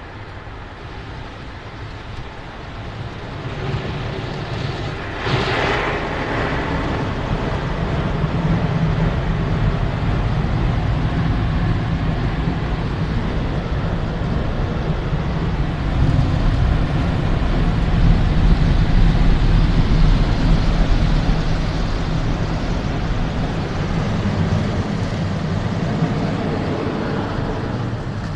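Automatic gantry car wash machine working over the car, heard from inside the cabin: rotating brushes and water sprays with a steady low rumble that builds a few seconds in, with a brief hissing swell soon after.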